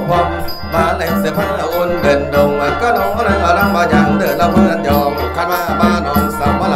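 Khaen, the Lao-Isan bamboo mouth organ, playing a mor lam tune with its continuous drone and melody over a steady percussion beat with a rattling, jingling shaker.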